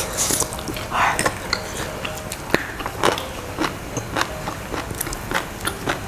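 Close-up eating sounds of fried chicken: crisp, irregular crunching bites and chewing, many sharp little crackles.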